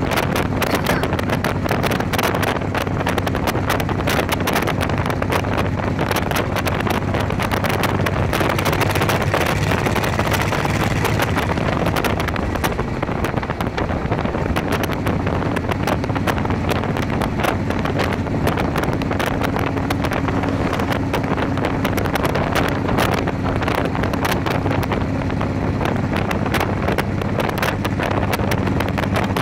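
Motorcycle engine running steadily at cruising speed, nearly buried under heavy wind buffeting on the microphone, with road noise.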